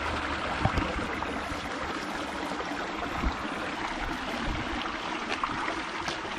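Small rocky creek rushing and babbling over stones, a steady water noise, with a couple of faint light knocks.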